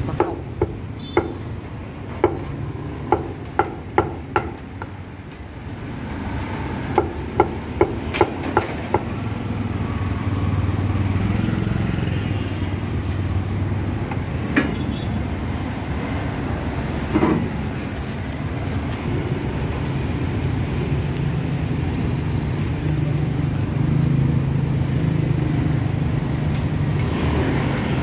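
Busy market street noise with motor engines running steadily. Runs of sharp knocks come several in quick succession during the first nine seconds, then single knocks twice more.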